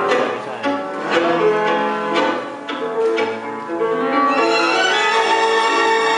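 Argentine tango music playing, with sharply marked beats for the first four seconds or so, then a smoother, sustained passage.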